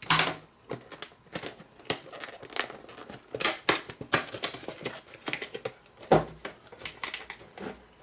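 Plastic and cardboard product packaging being handled and opened by hand: crinkling, scraping and tearing with many short clicks, and a heavier knock on the table about six seconds in.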